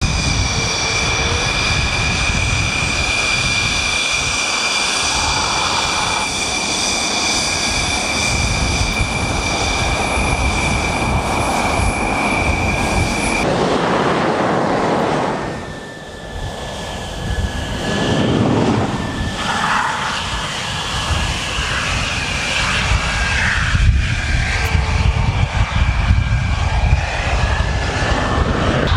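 Jet engines of fighter aircraft, Dassault Rafales among them, running at taxi power: a steady high turbine whine over a rumble. About halfway through the sound changes abruptly; the whine then wavers in pitch and the rumble grows louder as a Rafale taxis close by.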